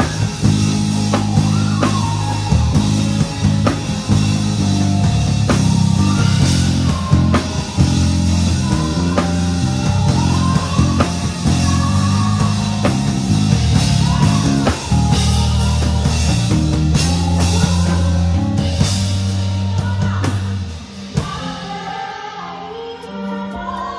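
Live band playing a rock-style worship song: drum kit, bass, guitar and singing. About 21 s in the bass and heavy drumming drop out and it turns quieter, leaving the singing.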